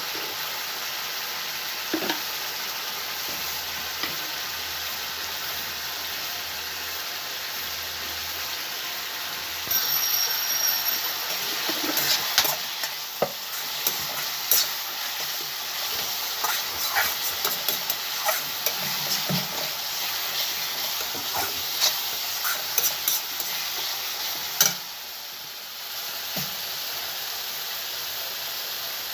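Spiced tempering (tadka) for dal fry sizzling steadily in hot oil in a pan. From about ten seconds in, a metal spoon stirs and scrapes the pan, making many sharp clicks and scrapes. These stop with a brief dip a few seconds before the end, and then the sizzle goes on.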